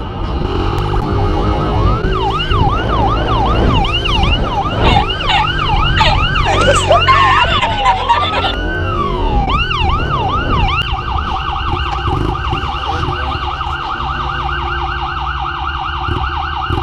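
Police siren sounding in repeated up-and-down sweeps, beginning about two seconds in at roughly two sweeps a second and changing about two-thirds of the way through to a much faster steady warble. Underneath is the steady low rumble of a dirt bike engine and wind noise.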